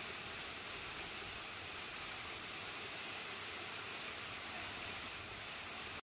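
Steady rush of a waterfall pouring down a rock face into a pool.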